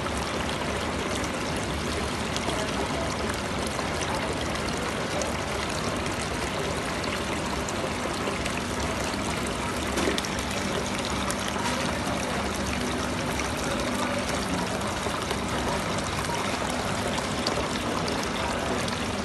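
Water from a small decorative rock fountain pouring off its spout and splashing steadily into the basin below.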